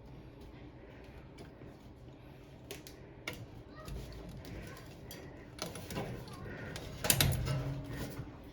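Scattered clicks and knocks of things being handled, a few about three seconds in and the loudest cluster at about seven seconds.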